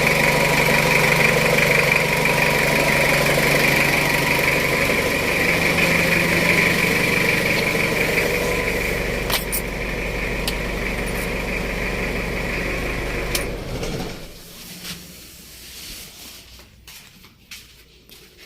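Jeep Wrangler engine idling steadily, its note shifting slightly about five seconds in, with no abnormal noise that the mechanic could find. It is switched off about 13.5 seconds in and runs down within a second, leaving only a few faint clicks.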